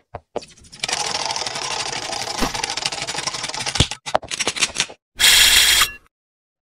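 Sound effects of an animated logo intro: a fast, dense clatter of clicks for about three seconds, a few separate clicks, then a short loud burst of noise about five seconds in.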